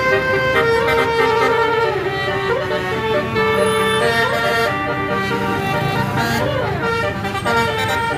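Bus telolet basuri horn playing a melody: several notes held at once, with pitches that slide up and down between notes, over vehicle noise.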